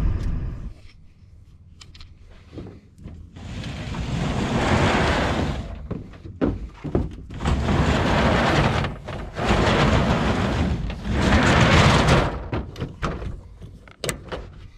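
ReTrax retractable truck-bed cover being rolled along its rails by hand, three long sliding runs of about two seconds each, with knocks and clicks between them and at the latch near the end. The cover rolls on ball bearings that have been oiled to cure its sticking.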